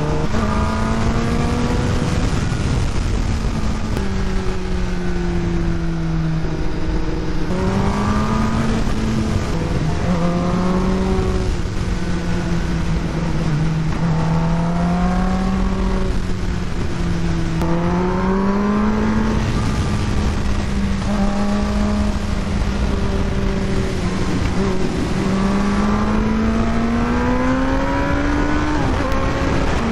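Kawasaki ZX-10R's inline-four engine running hard under way, its pitch climbing and falling again and again as the throttle is worked. Near the end the pitch drops at an upshift from second to third gear.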